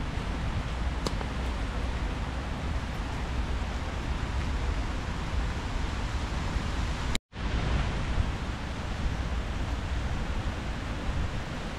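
Steady rushing outdoor background noise with no distinct events, heaviest in the low end. About seven seconds in, the sound cuts out completely for a fraction of a second and then comes back.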